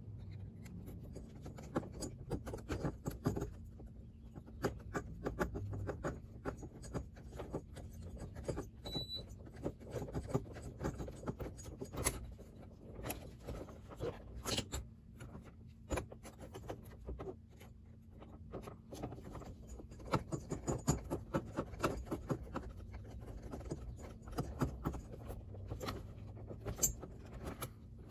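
Irregular small clicks and light metallic rattles of hand tools on an RC buggy's front end, as a hex driver and nut driver work the screws of an aluminium shock tower and shocks.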